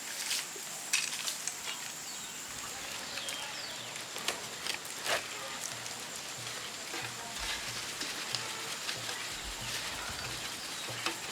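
Small fire crackling, with scattered pops over a steady hiss, as snail shell is burned to mix into yopo paste.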